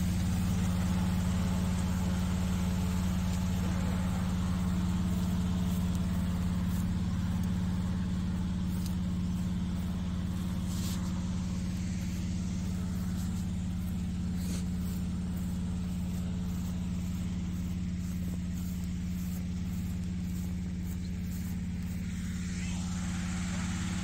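Engine-driven inflator fan running steadily, blowing cold air into a hot-air balloon envelope during cold inflation.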